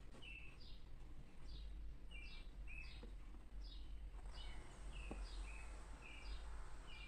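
A bird chirping steadily, about two short calls a second, each a quick falling note and a short steady one, over a low hum.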